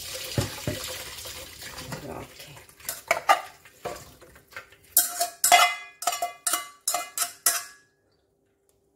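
Hot blanching water pouring from a pot through a mesh strainer into a stainless bowl. Then comes a quick run of about eight sharp metal clinks as metal tongs scrape the blanched chard out of the metal pot into the strainer.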